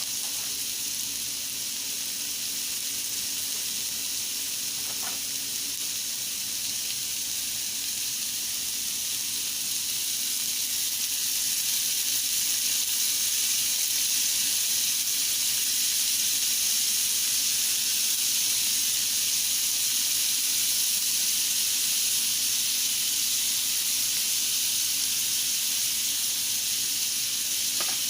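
Seasoned chicken pieces frying in a hot pan, a steady sizzle that grows louder about ten seconds in.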